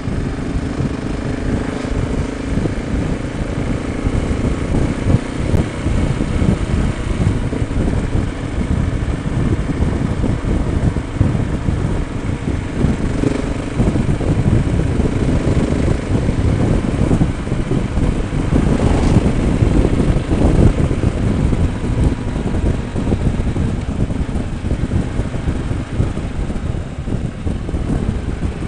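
Motorcycle riding steadily at road speed: the engine's low running note under wind rushing over the helmet-mounted microphone.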